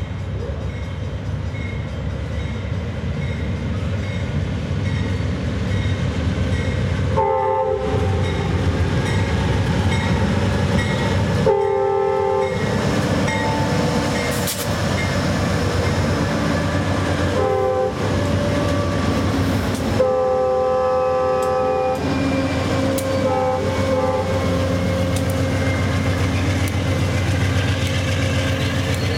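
Amtrak Coast Starlight passenger train with its diesel locomotives rumbling steadily, the horn chord sounding five times: short blasts with one longer blast of about two seconds two-thirds of the way through.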